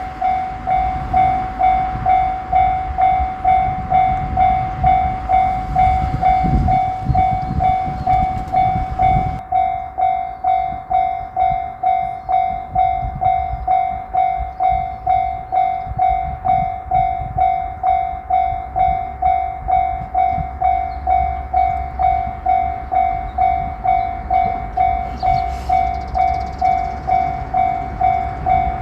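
Japanese level-crossing alarm ringing steadily at about two strikes a second. A train's low rumble runs under it for the first nine seconds or so, heaviest about six to seven seconds in, and drops away abruptly.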